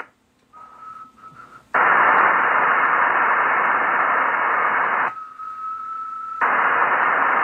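Icom IC-9700 receiving an empty single-sideband satellite downlink: steady radio hiss. The hiss cuts out twice, at the start and again about five seconds in, while the radio briefly transmits, and a steady high tone is heard in each gap. The first tone is broken; the second is held for just over a second.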